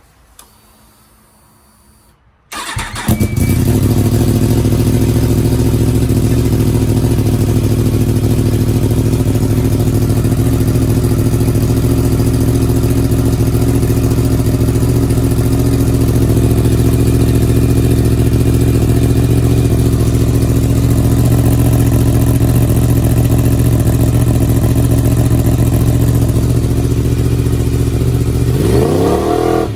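Yamaha YZF-R1 inline-four motorcycle engine starting about two and a half seconds in and then idling steadily, loud, through the stock slip-on silencer mounted on a link pipe in place of the catalytic converter. Near the end it is revved briefly, the pitch rising and falling.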